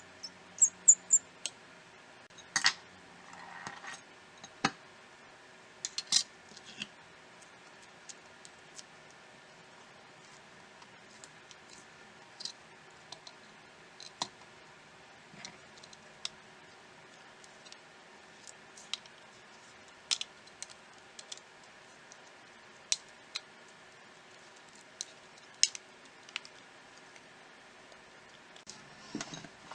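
Small sharp clicks and taps at irregular intervals, with a quick run of three about a second in, from tools and small parts being handled on a smartphone during reassembly, over a faint steady hum.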